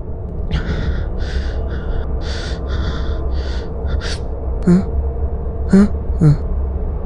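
A man breathing hard in quick, panting breaths, then giving three short, sharp gasps near the end, over a steady low rumble.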